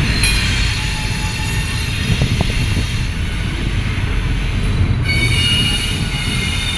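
Double-stack container freight cars rolling past with wheels squealing, over a low rumble. The squeal is a set of thin high-pitched tones that grows stronger about five seconds in.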